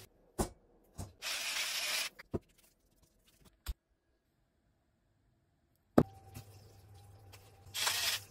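Kitchen prep sounds: a few sharp knocks on a wooden chopping board as garlic cloves are crushed, the loudest about six seconds in, and two short hissing bursts, one near the start and one near the end.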